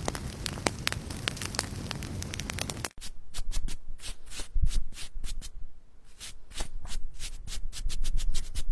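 Hands handling objects: a rapid run of clicks, rubs and scrapes, breaking off about three seconds in and then resuming as sharper, louder clicks.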